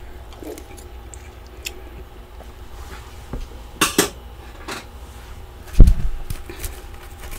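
A few sharp clicks and knocks of hard objects being handled, then one heavy thump about six seconds in, the loudest sound.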